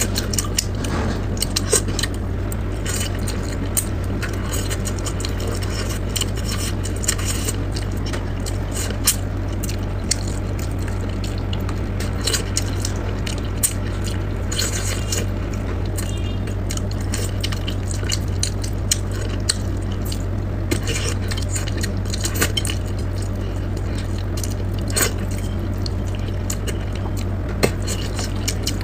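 Close-up eating sounds: chopsticks clicking on a plate and picking at braised crucian carp, with wet mouth sounds of chewing, in many short sharp clicks throughout. A steady low hum runs underneath.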